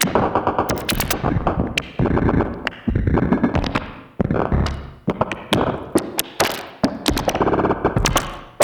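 Bugbrand Chirper modular synthesizer playing glitchy electronic music: four modulated voices switching together in a jumping 'hiccup' rhythm, with dense clicks and thuds over short tones that start loud and fade, chopped up by a glitch effect.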